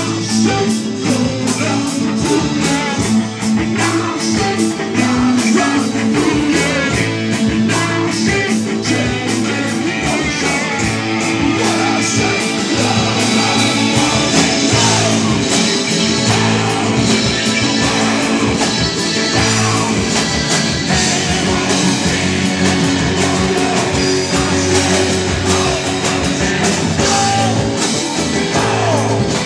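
Live rock band playing a song: a man singing lead over acoustic-electric and electric guitars, keyboard and a steady drum beat.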